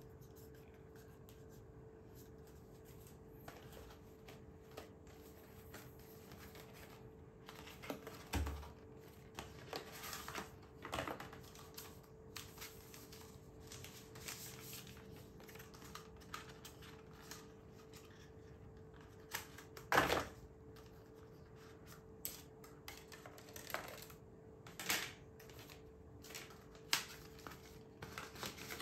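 Handling noises of a foldable phone and its packaging being unboxed: scattered light taps, clicks and rustles, the sharpest click about twenty seconds in, over a faint steady hum.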